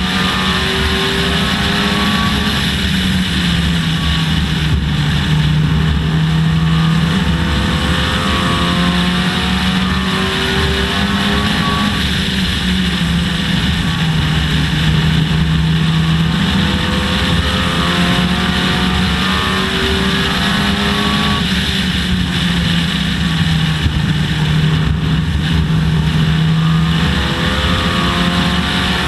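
Dodge Neon race car's four-cylinder engine running hard at racing speed. Its pitch climbs and drops in a repeating cycle, several times over, as the throttle comes on and off, over steady wind and road noise.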